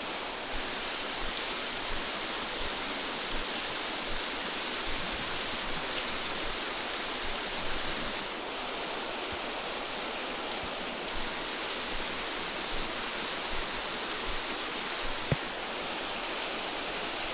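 Steady rush of falling water from a waterfall, an even hiss whose brightness shifts a few times.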